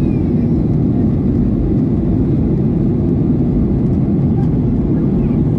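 Steady low rumble of a GOL Boeing 737's jet engines and airflow, heard from inside the passenger cabin, unchanging in pitch and level.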